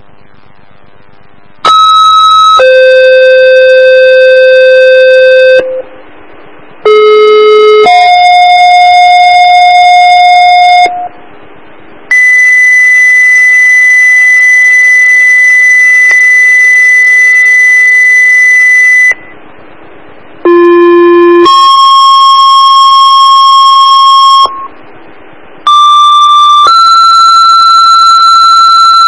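Two-tone sequential pager tones for alerting fire and ambulance crews, heard over a radio scanner. Four times, a tone of about a second steps to a different steady pitch held about three seconds, and one long steady tone of about seven seconds comes in the middle. Brief pauses of radio hiss separate the tone sets.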